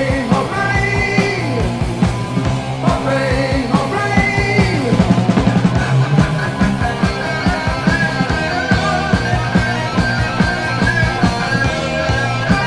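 1980 New Wave of British Heavy Metal song with electric guitar, bass and drums playing at full tilt, with a quick run of drum hits about five seconds in.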